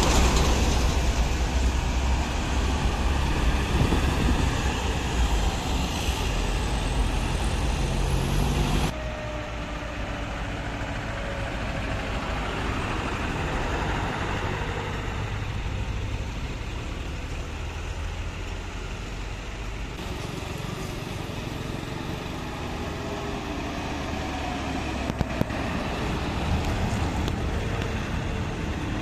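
Minibuses and other road traffic passing at close range, engines running hard. A loud, low engine rumble fills the first nine seconds, then the sound drops suddenly to a quieter passing-vehicle and traffic noise.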